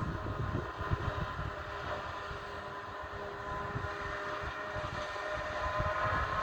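Silage-harvesting machinery, a Claas forage harvester working with John Deere tractors, running at a distance: a steady hum with several whining tones that drift slightly and grow a little louder near the end, over an uneven low rumble.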